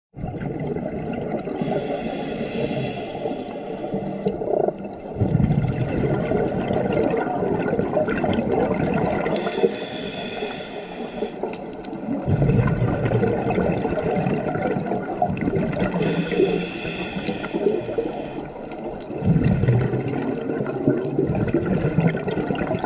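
Scuba diver breathing through a regulator underwater: a hissing, whistling inhale, then a low gurgling rush of exhaled bubbles, repeating in about three slow breaths.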